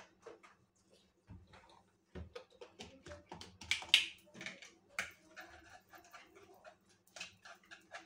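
A metal whisk beating eggs and milk in a plastic bowl: quick, irregular clicks and scrapes of the wires against the bowl, starting about two seconds in.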